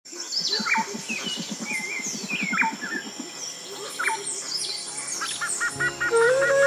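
Tropical rainforest birds calling: many short whistles and chirps overlap, over a fast run of low pulses in the first half. About three-quarters of the way through, music with steady flute-like tones and a quick repeated note fades in.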